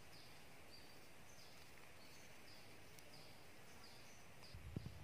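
Near silence: faint outdoor ambience with a short, high chirping call repeating about twice a second. A few soft low knocks come in near the end.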